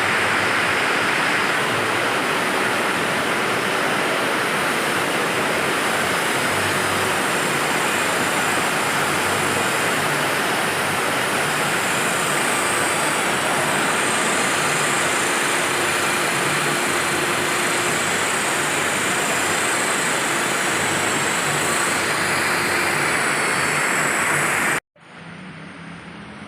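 Steady, loud hissing rush of a body-shop tool at work, unchanging until it cuts off abruptly near the end.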